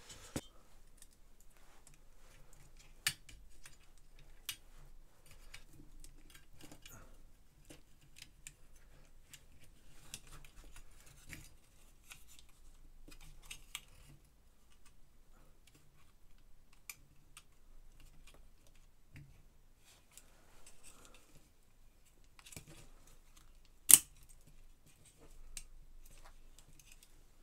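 Small plastic and metal parts being handled and fitted together: scattered light clicks and taps, with one sharp, louder click about three seconds in and the loudest near the end.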